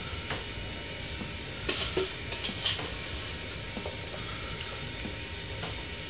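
Soft taps and light clicks as a gloved hand spreads chopped seasoning vegetables over salmon fillets in a baking tray, with a few louder clicks about two seconds in.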